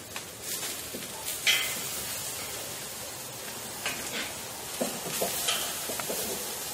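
Thick slices of rib roast sizzling on a hot grill grate, with a few short metallic scrapes and clicks of a steak turner against the grate as the steaks are flipped.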